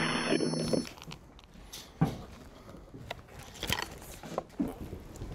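A steady electronic drone with a hiss cuts off sharply about a second in. Quiet room sound follows, with scattered short knocks, clicks and rustles.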